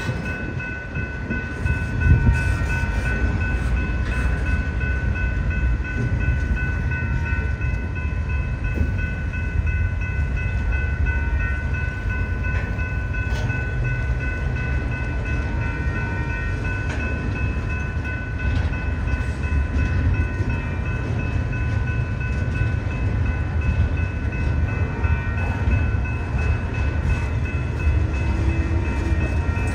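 Long freight train rolling past: a steady, dense low rumble of wheels on rail, with thin, steady high-pitched tones ringing over it.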